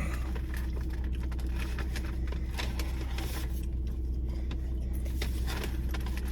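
Close-up eating sounds: chewing, with small clicks and crackles of food and packaging, over a steady low hum.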